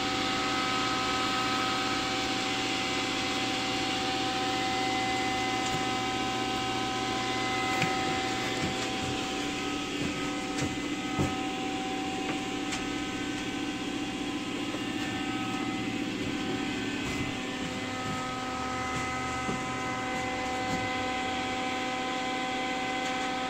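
Electric circulation fan running steadily: a constant mechanical hum with several unchanging tones in it, and a few faint clicks.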